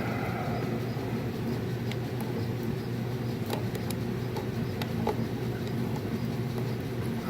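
A steady low mechanical hum throughout, with a few short metallic clicks and taps from hand tools working the nuts and bolts on a riding mower's engine shroud.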